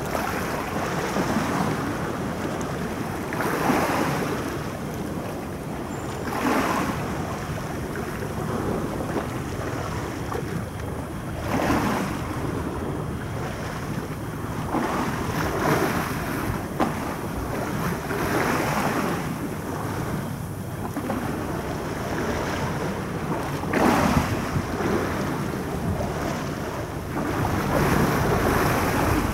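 Harbour water washing against the shore in irregular surges a few seconds apart, with wind noise on the microphone.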